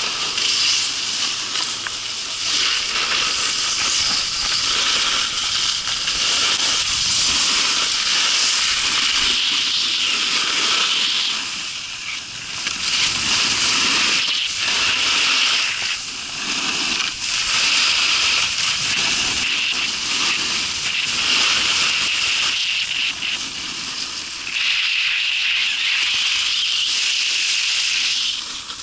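Snowboards sliding and scraping over hard-packed groomed snow: a loud, steady hiss that eases off briefly a few times as the riders turn.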